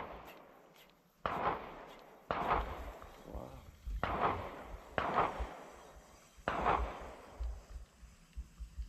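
Distant gunshots: five sharp reports over about five seconds, irregularly spaced, each trailing off in a long echo.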